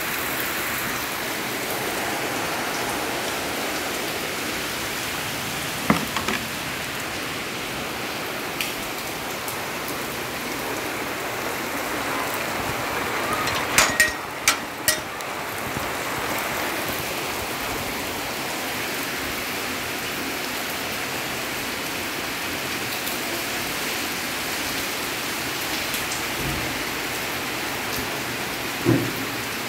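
Steady rain falling. A few sharp clicks and knocks stand out, with a quick cluster of three about halfway through.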